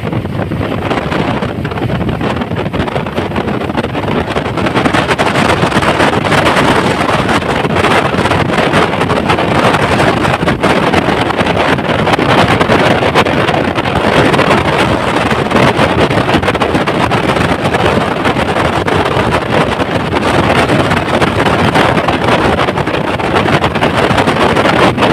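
Wind rushing in through the open window of a moving bus and buffeting the microphone, with road noise underneath. It is a loud, steady rush that grows a little louder after about four seconds.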